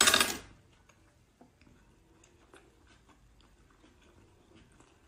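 Close-miked eating: a loud, brief wet mouth noise as a piece of braised seafood is taken into the mouth from the fingers, then quiet closed-mouth chewing with faint mouth clicks.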